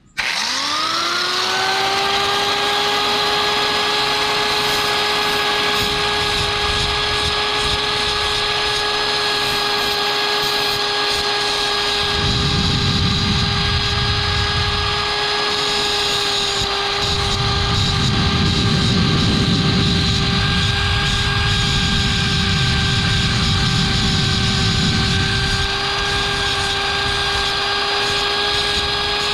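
Electric angle grinder switched on, its whine rising quickly as the motor spins up and then running steady. In two stretches a rougher grinding noise joins it as the tip of a stainless wire fishing hook is held to the disc to round and smooth it.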